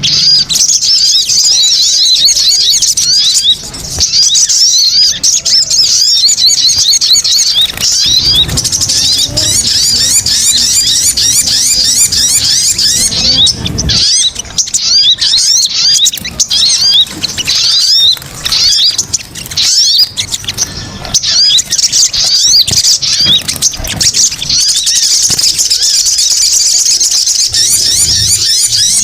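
Sogon (sogok ontong) bird calls in a lure recording: loud, fast, high-pitched chattering chirps that overlap densely and keep going with only brief gaps.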